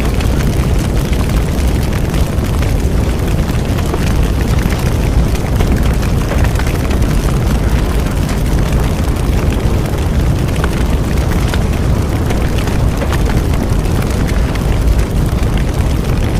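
Bonfire burning with a steady low rumble and scattered sharp crackles and pops.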